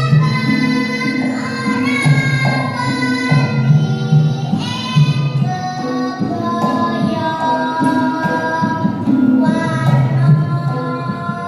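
A child singing a Javanese tembang in long, held, gliding notes over instrumental accompaniment with a repeating low pattern.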